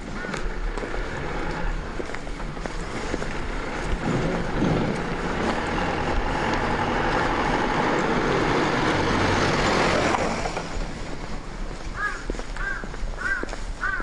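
A small cab-over truck driving past: engine and tyre noise grow louder, are loudest about ten seconds in, then drop away quickly as it goes by.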